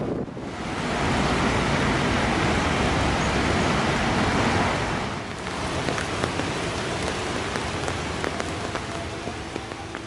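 Rain falling: a steady, even hiss. From about halfway, separate drops ticking on leaves can be picked out, and the sound slowly gets quieter.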